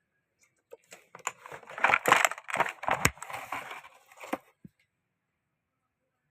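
Mechanical keyboard with Outemu Brown switches being typed on fast, a dense clatter of keystrokes for about four seconds that starts about a second in and stops well before the end.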